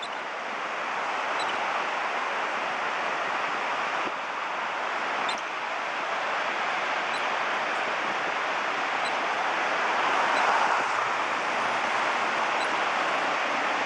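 Steady wash of ocean surf, swelling briefly about ten seconds in.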